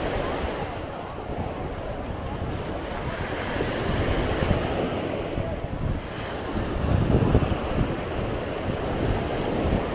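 Sea waves washing onto the beach, with gusty wind buffeting the microphone as a low rumble.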